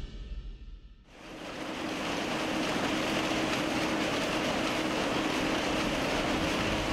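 Background music fades out in the first second, then the steady machine noise of textile weaving machinery rises in and holds: an even rushing din with a faint low hum through it.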